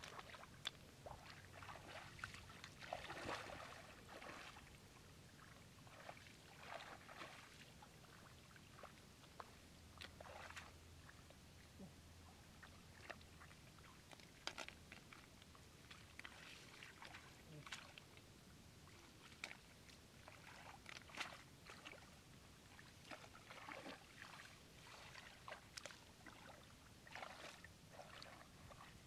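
Faint, irregular splashing and sloshing of shallow floodwater as a man wades and gropes in it by hand for mud snails.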